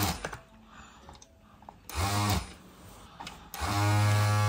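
Operation board game's electric buzzer going off as the patient's red nose lights up: a steady buzz that cuts out just after the start, sounds again briefly about two seconds in, and comes back and holds from about three and a half seconds in, with a few light clicks just before.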